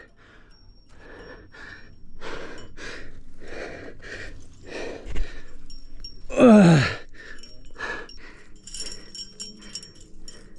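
A rock climber breathing hard in quick, regular breaths while jamming a crack, with one loud, falling groan of effort about six and a half seconds in. Light clicks near the end.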